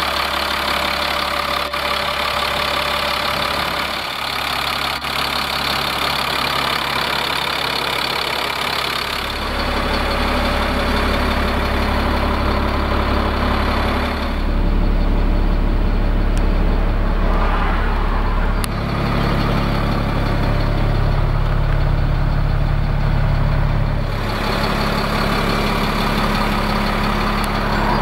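Freightliner FL60's Caterpillar diesel engine idling steadily. Its tone shifts abruptly a few times.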